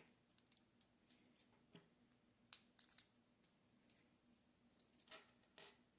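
Faint, scattered clicks of plastic LEGO pieces being handled and pressed together, with a few sharper clicks about two and a half to three seconds in and again near the end.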